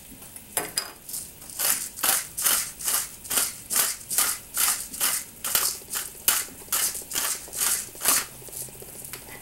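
Pepper mill being twisted to grind black pepper, a steady run of about seventeen grinding strokes at roughly two a second, stopping about a second before the end.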